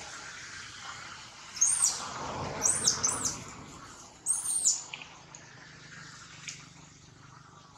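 Short, high-pitched squeaky calls, each rising and falling in pitch, in three bunches: one about a second and a half in, three around three seconds in, and two more around four and a half seconds in. A soft rustle runs under the middle calls.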